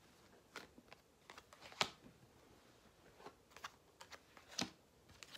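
Tarot cards being handled on a table: faint, scattered taps and flicks of card stock, the two sharpest about two seconds in and near the end.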